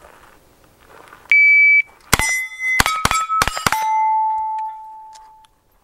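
Shot timer beeps once, then a 9mm pistol caliber carbine fires a rapid string of about five shots. Each hit is answered by a steel plate target ringing, and the last ring dies away over about a second and a half.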